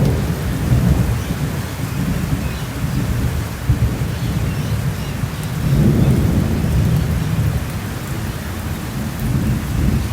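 Thunderstorm: steady rain with continuous rolling thunder, the rumble swelling at the start, about six seconds in and again near the end.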